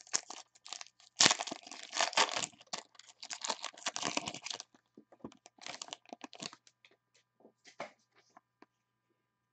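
Foil wrapper of a 2015 Panini Rookies & Stars football card pack being torn open and crinkled by hand: a dense run of crackling rips over about three and a half seconds, loudest at the first rip, then a few shorter crinkles that die away.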